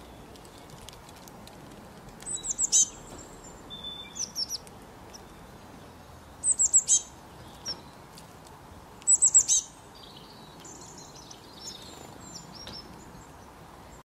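Bird chirping: three loud bursts of four or five quick, high chirps, each falling in pitch, about four seconds apart, with softer scattered calls in between over a faint steady hiss.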